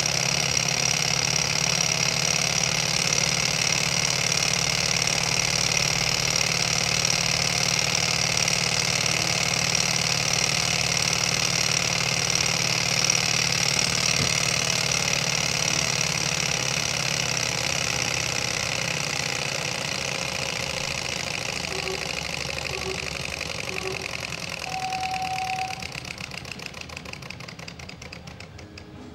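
Small model hot-air Stirling engine running with a fast, steady mechanical clatter from its piston and flywheel linkage. Over the last ten seconds or so it gets quieter and slows, with single strokes becoming audible near the end, as the engine runs down once its burner flame is out.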